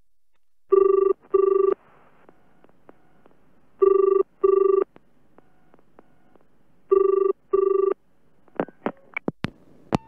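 Telephone ringing with the British double ring: three pairs of rings about three seconds apart. A few sharp clicks follow near the end as the call is answered.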